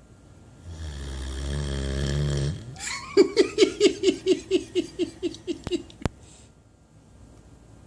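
Great Dane snoring: a low rumbling snore on the in-breath, then a fluttering run of about fifteen quick pulses, roughly five a second, on the out-breath. A couple of small clicks follow before the next breath.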